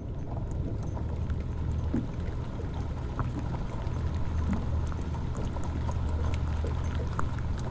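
Boat engine running steadily with a low hum, with scattered light ticks of rain falling.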